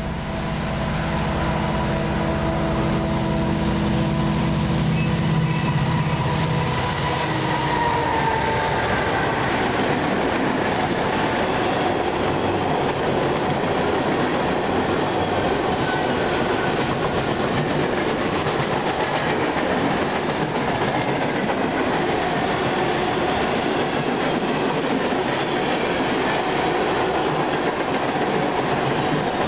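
Freight train passing at speed, led by a Soo Line EMD SD60 diesel locomotive and a leased HLCX unit. The locomotives' steady engine drone builds and passes in the first seven or eight seconds. Then a long string of covered hopper cars rolls by with a steady rumble and clatter of wheels on the rails.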